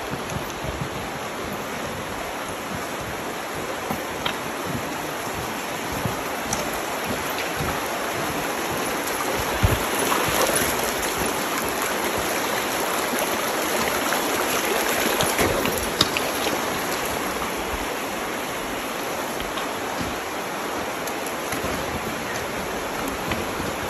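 Stream water running steadily over rocks, swelling a little louder for a few seconds in the middle, with a few light knocks.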